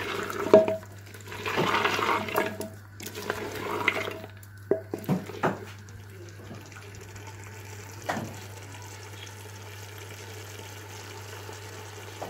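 Beef and potato curry being stir-fried on high heat in a clay pot: for the first five seconds a wooden spatula scrapes and clicks against the pot in bursts, then the frying settles into a steady sizzle with a single knock about eight seconds in.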